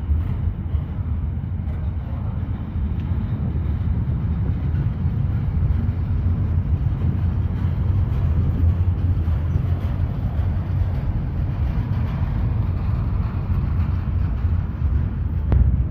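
Train running with a steady low rumble, without any horn.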